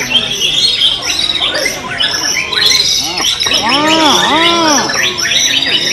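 Many white-rumped shamas singing at once, a dense tangle of fast, overlapping whistles and trills. Near the middle a lower call rises and falls in pitch several times over the chorus.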